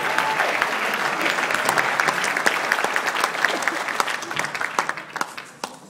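Audience applauding, with the clapping dying away over the last second or so.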